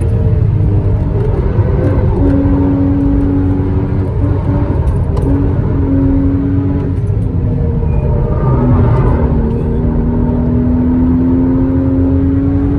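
Porsche Cayman S (981) mid-mounted 3.4-litre flat-six running hard under load. The engine note holds steady, breaks and dips about four seconds and about eight seconds in, then rises steadily near the end as the car accelerates.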